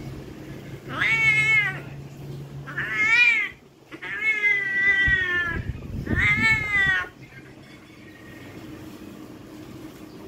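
Domestic cat meowing four times in loud, drawn-out calls; the third call is the longest.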